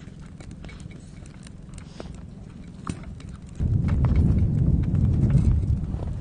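Cat chewing and tearing at dried, roasted wild boar meat, with scattered sharp clicks of its bites. About three and a half seconds in, a loud low rumble takes over.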